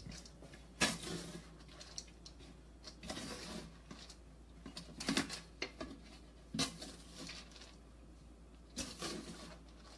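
A spoon scraping and clicking irregularly against a colander while parboiled rice is mixed with chopped fresh herbs.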